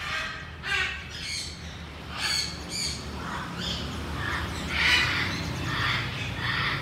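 Chinese hwamei calling: a series of short, harsh, scratchy notes, roughly one or two a second.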